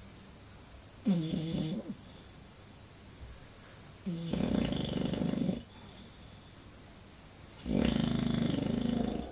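English bulldog snoring: three snores, a short one about a second in, then two longer ones, each lasting about a second and a half, with quiet pauses between.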